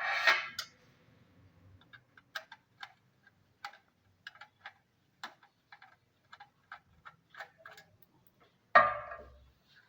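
Small irregular metallic clicks from screws being undone on a DVR's metal case, a few each second, with two louder scraping clatters, one at the start and one near the end, as the case and parts are handled.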